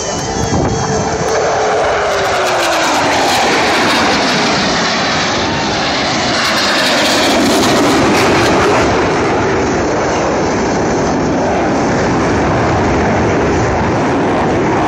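Aircraft flying past low overhead: a loud engine roar whose pitch falls over the first few seconds as one passes, then a steady roar that swells to its loudest about halfway through.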